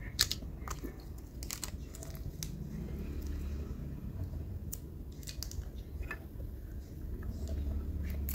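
1957 Zippo lighter being handled, its hinged metal lid flipped open and snapped shut, giving a scatter of sharp metallic clicks.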